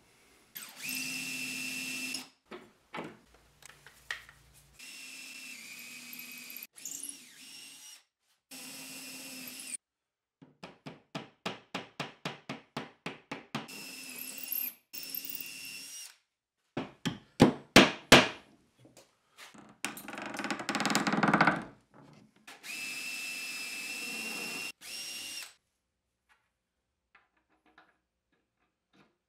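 Cordless drill/driver driving screws through wooden hinges, its motor whine starting and stopping in several short runs. Between the runs come rapid series of clicks and a few sharp knocks.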